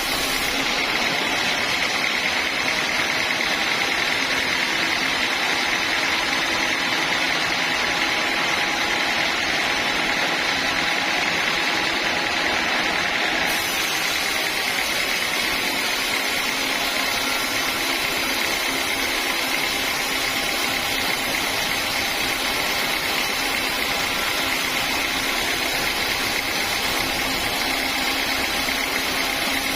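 Sawmill band saw machinery running steadily, with a constant high whine over a machine drone. The character of the highest part of the sound shifts abruptly about halfway through.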